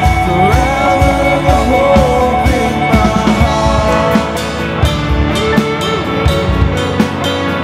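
Live worship band playing a rock-style song, with electric, bass and acoustic guitars, and a lead vocalist singing a wavering melody over cymbal and drum hits.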